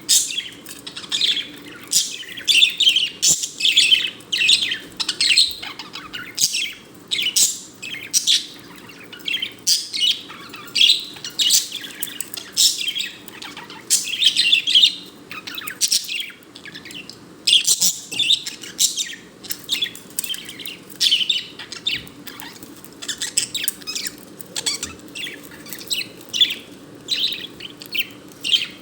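Budgerigar chirping and warbling in quick, excited bursts of short high chirps, the chatter of a contented budgie.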